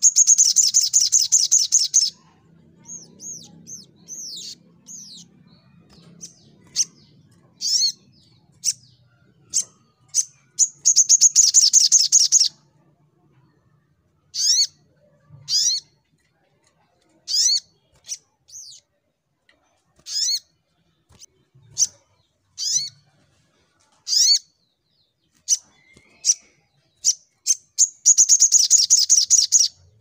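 Caged male sunbird singing: three loud, rapid high trills of about two seconds each, roughly ten seconds apart (at the start, about a third of the way in, and at the end), with short sharp chirps between them.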